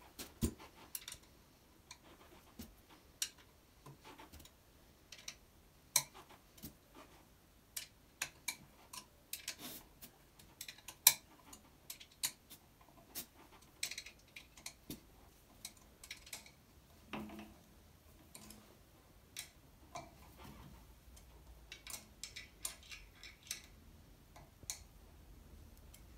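Irregular light metallic clicks and ticks from a hex key working the Allen-head bolts of an exercise bike's front stabiliser as they are tightened.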